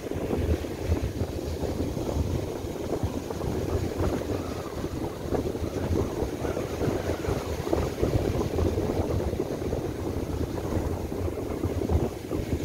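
Strong gusty wind buffeting the microphone with a low rumble, over surf breaking and washing up a beach.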